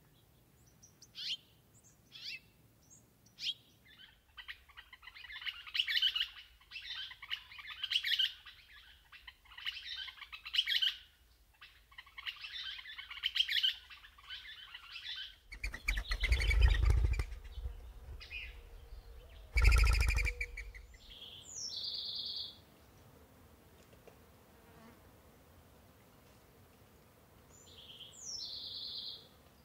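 Grassland birds calling: first a string of short, sharp chirps, then a long run of dense, rapid chattering. About halfway through come two brief low rumbles, and later two short harsh calls, each led by a quick falling note.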